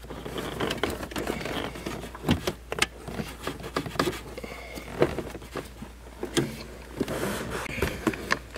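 Metal intermediate steering shaft being worked by hand down through the rubber firewall boot: irregular clicks, knocks and rubbing scrapes as it is pushed through.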